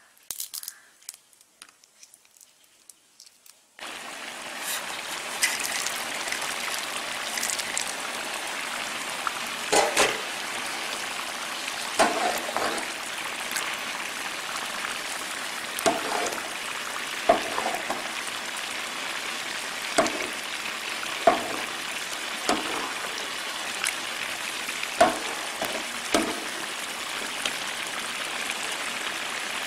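Carrot halwa cooking in a metal kadai: a steady sizzling and bubbling starts about four seconds in, while a metal spoon stirs it and knocks against the pan every second or two. Before that, only a few light clicks.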